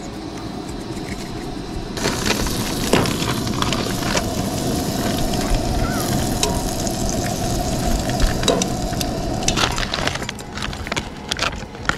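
Butter sizzling and crackling in a hot cast-iron skillet on a portable gas camp stove, starting about two seconds in, with a steady hum underneath. Near the end the sizzle drops away and a few light knocks follow, frozen vegetables rattling into a steel bowl.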